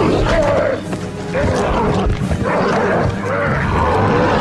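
Film soundtrack of a monstrous gamma-mutated dog growling and roaring as it fights, its calls wavering up and down in pitch, mixed over music.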